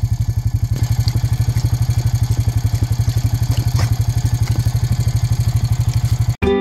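An engine idling with a steady, fast, even putter that cuts off abruptly near the end.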